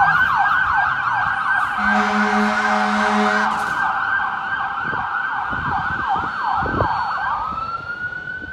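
Fire rescue engine's electronic siren on a fast yelp, sweeping up and down several times a second. A horn blast sounds for about a second and a half, starting about two seconds in. Near the end the siren changes to a slow rising wail, growing fainter as the truck moves away.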